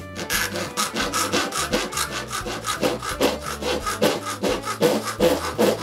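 Flat hand file rasping back and forth across the edge of a thin metal sheet in quick, even, repeated strokes.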